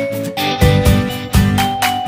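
Background music: a melody of held notes over a steady beat.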